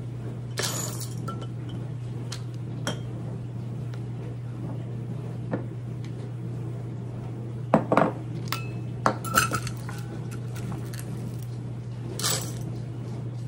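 Dry navy beans being scooped with a measuring cup from a metal colander and poured through a plastic funnel into glass pint jars: a few short clattering rattles of beans against the glass and scoop, about a second in, twice around the middle and once near the end. A steady low hum runs underneath.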